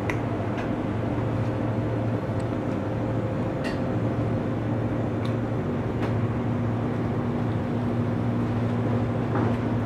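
A steady low mechanical hum from kitchen machinery, with a few faint clicks of a knife against a plastic cutting board as a raw chicken is cut apart.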